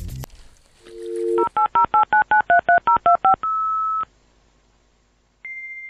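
Touch-tone telephone sound effect: a two-tone dial tone swells in, then about a dozen quick keypad dialing beeps, then one longer single beep. A high steady tone starts near the end.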